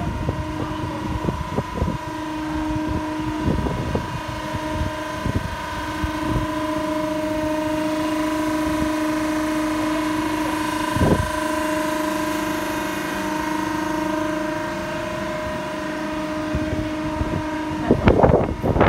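Conmach BlockKing-12MS concrete block and interlocking paver machine running: a steady hum with a few held tones over a rumble, and scattered knocks. It grows louder from about six seconds to fourteen seconds, and near the end it breaks into loud clattering.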